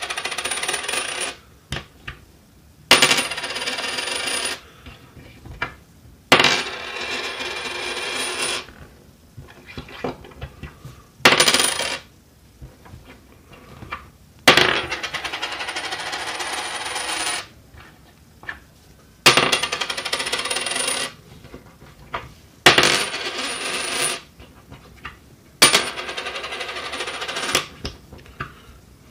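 A US quarter tossed onto a wooden tabletop again and again, about eight times. Each toss lands with a sharp clink, then the coin rattles against the wood with a high ringing tone for one to three seconds before it settles.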